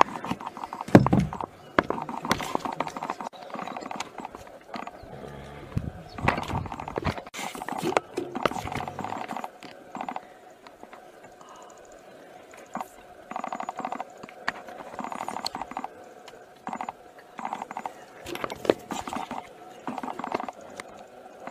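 A warthog squealing in distress in repeated short bursts while caught in a leopard's jaws and not yet dead. It quietens for a while in the middle. A vehicle engine runs low underneath for the first several seconds.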